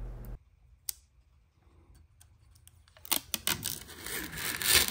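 Thin plastic protective film being peeled off a resin 3D printer's vat: a single click about a second in, then from about three seconds in a crackly, crinkling peel with sharp snaps that grows louder near the end.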